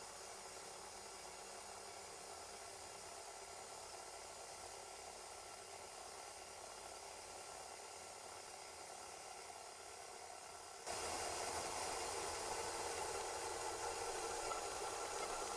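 Stand mixer running, its beater working flour and water into bread dough: a steady whirring hiss that abruptly gets louder about eleven seconds in.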